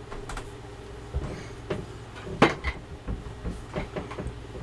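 A few irregular knocks and clunks, the loudest about two and a half seconds in: a sharpening stone, the medium India, being picked out and set down on the bench.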